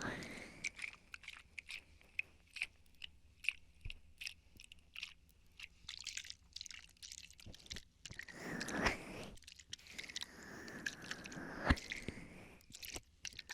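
Plastic water bottle handled close to the microphone: a run of crinkling, crackling clicks, with two longer swells of sound at about eight and eleven seconds in and one sharp click near the end.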